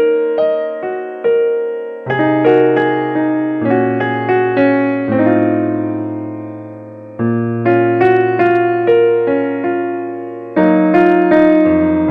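Background piano music: a gentle melody of struck notes and chords that ring and fade, in phrases with a long held chord in the middle.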